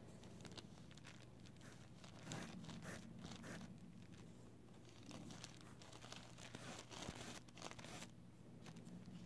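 Faint rustling and crinkling of hands working a nail stamper over the fingernails, in many short scratchy strokes over a steady low hum.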